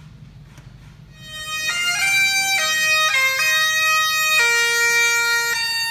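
Highland bagpipes striking up about a second in. The sound swells over a fraction of a second as the pipes come in, then the chanter plays a melody of held notes stepping up and down over the drones.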